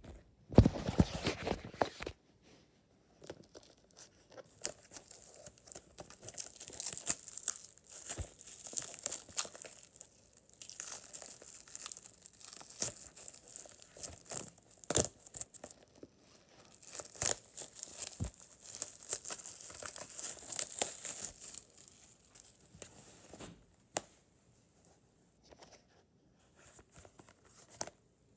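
Plastic shrink wrap being torn and peeled off a DVD box set, crinkling in several long stretches with sharp crackles. It goes quieter near the end, leaving a few light clicks as the bare case is handled.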